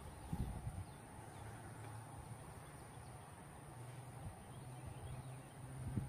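Faint outdoor ambience: a low rumble, a thin steady high-pitched whine throughout, and a low steady hum coming in during the second half.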